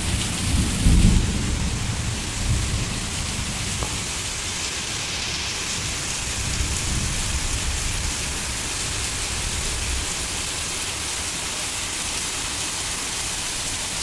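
Heavy rain pouring steadily in a steady hiss. A low rumble of thunder is loudest about a second in and dies away over the following several seconds.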